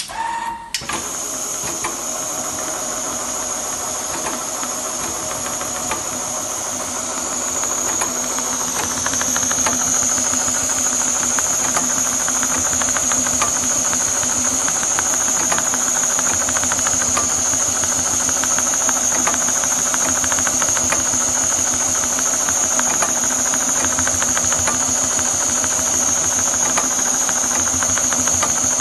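Richpeace computerized leather sewing machine stitching leather: a fast, even patter of needle strokes over a high, steady whine, growing louder about eight seconds in.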